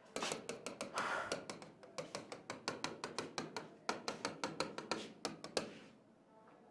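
Stylus tapping and ticking on an interactive touchscreen board as a dashed line is drawn stroke by stroke: a quick run of short taps, about five a second, stopping near the end.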